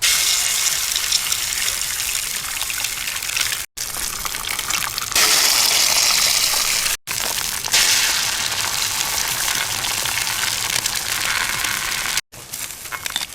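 Steady rushing water, heard in four short clips cut together, one of them louder than the rest.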